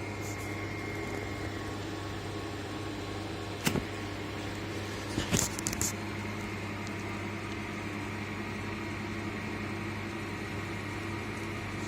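Steady electrical hum of running motor-control equipment in an HVAC plant room, with the pitch of mains-frequency hum. A sharp click comes about four seconds in, and a short run of clicks follows a second and a half later.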